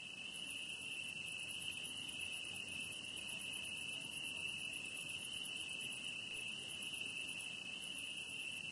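Crickets chirping in a steady night chorus, one constant high trill that does not change.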